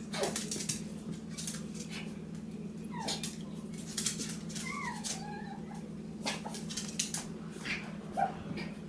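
Poodle puppies playing with their mother: a few short squeaky whimpers and yips, mostly three to five seconds in, over scattered clicks of claws on the tile floor and a steady low hum.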